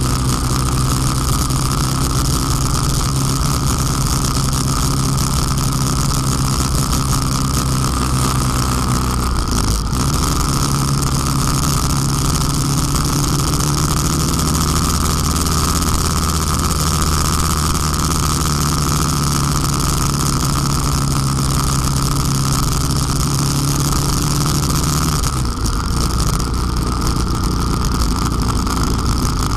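Honda Transalp V-twin engine running while riding on the road, with wind and road noise and clicking from a rattling camera mount. The engine note changes about ten seconds in and again near the end.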